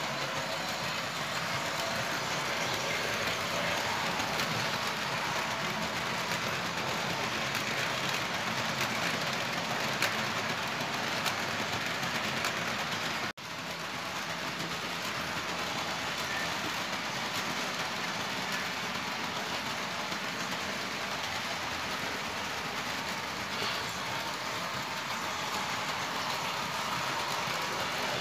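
Vintage Märklin HO model train, an electric locomotive hauling tinplate coaches, running on metal track with a steady rolling noise. The sound cuts out for an instant about halfway through.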